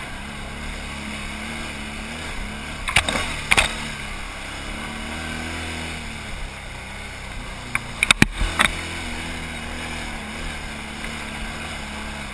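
Can-Am Outlander XMR 1000 ATV's V-twin engine running at low, steady revs on a slow climb, its pitch wavering a little. Sharp knocks come in two short clusters, about three seconds in and again around eight seconds in.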